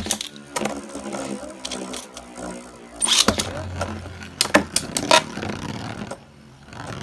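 Two Beyblade Burst spinning tops whirring on a plastic stadium floor, a steady hum, with a loud clash about three seconds in and a few sharp clacks as they strike each other after it.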